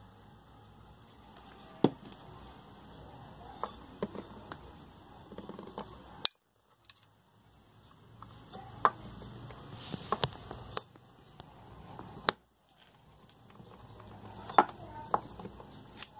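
Scattered light clicks and clinks of small metal parts of a Mallory electric fan's motor being handled while the new bushing is oiled and the motor is put back together, over a faint steady hum. The sound cuts out briefly twice.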